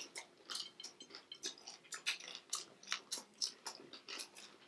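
Eating sounds: chewing and biting into food. They come as many small, irregular crunches and clicks.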